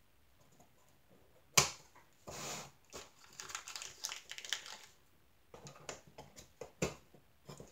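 Hands fitting small rubber bands onto an assembled wooden tray holder: scattered light clicks, taps and rustles, with one sharp click about a second and a half in, the loudest sound.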